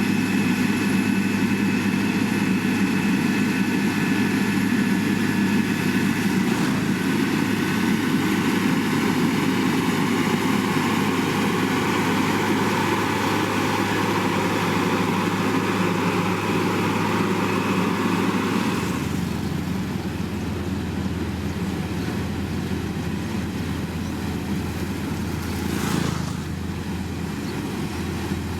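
Heavy diesel engine of road-construction machinery running steadily. About 19 seconds in the engine note drops and the sound gets a little quieter, with a brief knock near the end.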